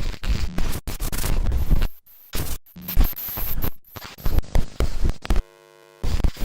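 VHS playback static sound effect: bursts of tape hiss and static that cut in and out abruptly, with scratchy glitches. About five and a half seconds in, a short steady electrical buzz takes over for about half a second.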